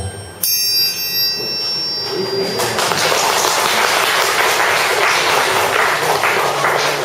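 An alarm clock going off. A bright ringing tone starts about half a second in and fades over the next two seconds. From about two and a half seconds a continuous dense metallic rattle of ringing runs on.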